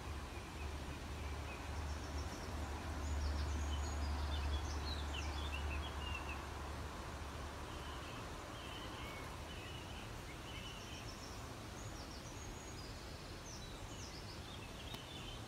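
Small birds chirping and singing over a steady outdoor background hiss, with a low rumble through the first half.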